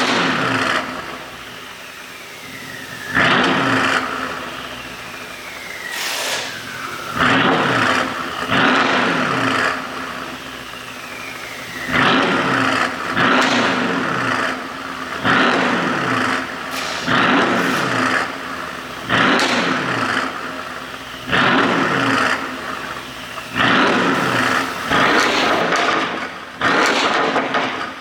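Mercedes CLS63 AMG's twin-turbo V8 revved in a dozen or so sharp throttle blips, one every couple of seconds, each followed by the revs falling away, with a thin falling whistle between some blips. The exhaust has been tuned through the ECU to pop and crackle on the overrun.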